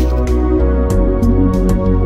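Background music: sustained held tones over a steady low bass, with light percussive clicks every few tenths of a second.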